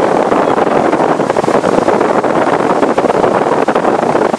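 Steady wind buffeting the microphone on the bow of a motor cruiser under way. Under the wind is the rushing sound of the boat running through the water.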